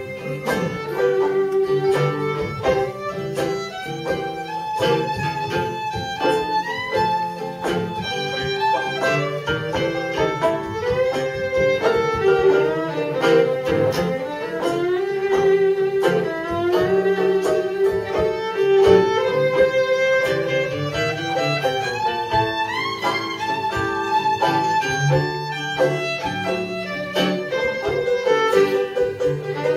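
Old-time string band playing an instrumental break: a fiddle carries the melody over a strummed guitar and a steady, clicking rhythmic beat.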